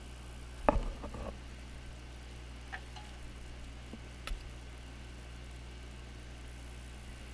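Metal helping-hands clamp being handled and adjusted: a short cluster of clicks and knocks about a second in, then a couple of light single ticks, over a steady low hum.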